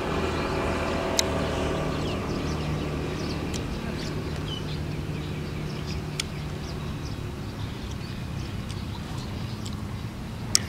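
Outdoor ambience: a steady low hum with faint bird chirps, broken by three sharp clicks about one, six and ten and a half seconds in.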